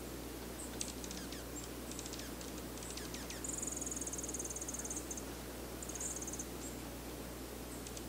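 High-pitched calls of a small bird. First come several thin notes that fall quickly in pitch. About three and a half seconds in there is a rapid, very high trill lasting nearly two seconds, and a shorter trill follows about six seconds in.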